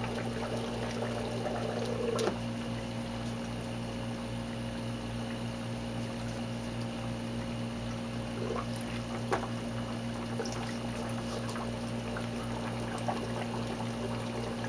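Bubbling water in a SURF4 floating upflow algae scrubber, over the steady hum of the pumps that drive it. About two seconds in, a knock as its foam lid is set on, after which the bubbling is quieter; a few faint knocks follow as the lid is handled.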